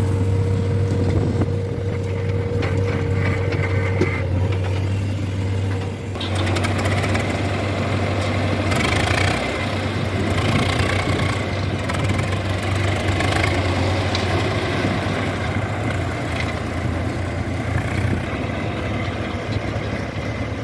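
Diesel engine running steadily at low revs, with a busier mechanical clatter joining about six seconds in.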